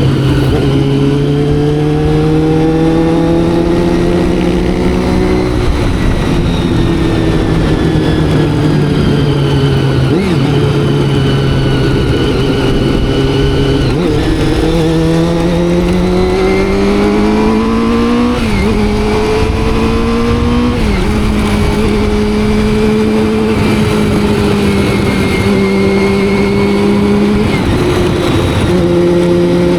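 Carbureted inline-four engine of a Honda CBR400RR sport bike pulling through the gears: the pitch climbs under acceleration and drops sharply at each upshift, several times, with stretches of steadier cruising between.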